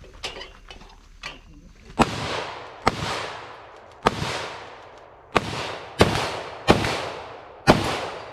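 Seven loud rifle shots from a semi-automatic carbine, fired at a steady pace about a second apart, each with a long echoing tail. A few faint pops come in the first second and a half.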